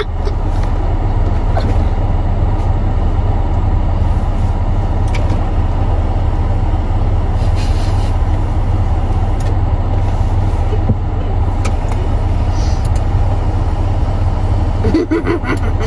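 Steady low rumble of a car heard from inside the cabin, with a few faint clicks.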